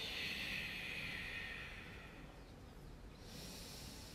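A woman's audible ujjayi breathing, drawn through a narrowed throat: one long breath lasting about two seconds, then after a pause another breath beginning near the end.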